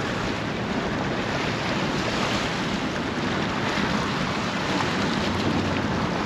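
Wind buffeting the microphone over small waves splashing against a rocky seawall, a steady noise with no breaks.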